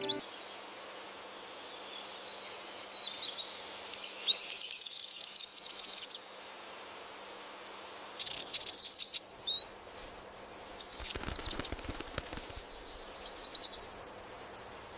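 Goldfinch chirping in several bursts of rapid, high twittering calls, a few seconds apart.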